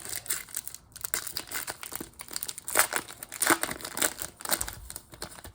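Wrapper of a Panini Prizm trading card pack being torn open and crinkled, in a run of irregular crackles.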